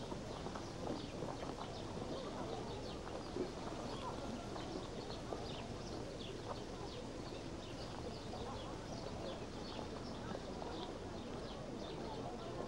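Outdoor park ambience: many small birds chirping in short high calls throughout, over a steady low murmur of distant people.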